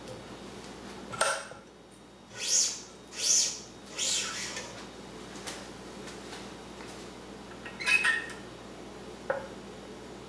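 Badminton string being pulled through the racket's strings and grommets: three quick hissing, zipping pulls about two seconds in, with a few sharp clicks and knocks from the stringing machine before and after.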